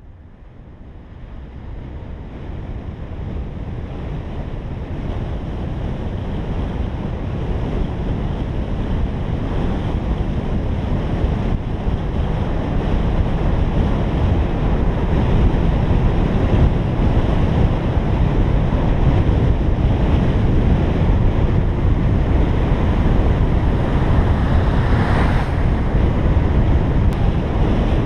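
Wind and road noise from a moving car, rushing over a car-mounted camera's microphone. It fades in over the first few seconds, then stays steady, with a brief louder gust near the end.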